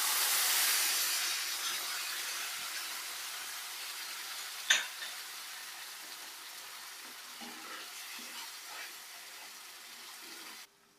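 Watery mustard-paste mixture sizzling as it goes into hot oil in a frying pan, loudest at first and slowly dying down as it is stirred with a spatula. A single sharp knock about halfway, and the sound cuts off suddenly near the end.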